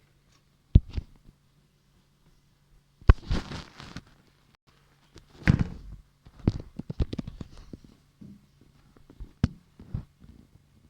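Handling noises: a scatter of sharp knocks and clicks, with two longer noisy bursts about three seconds in and about five and a half seconds in.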